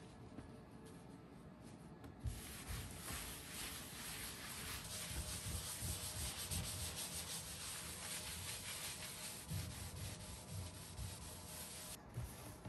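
Steady rubbing noise, like something being scrubbed or sanded, starting about two seconds in and stopping near the end, with a few soft low knocks.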